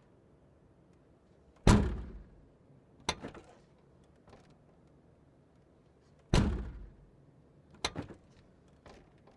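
Trunk lid slammed shut twice, the slams about four and a half seconds apart. Each slam is followed about a second and a half later by a pair of smaller latch clicks, then a faint tick.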